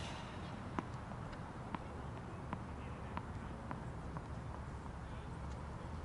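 A few faint, sharp taps of a tennis ball on a hard court, about one a second, over a steady low outdoor rumble.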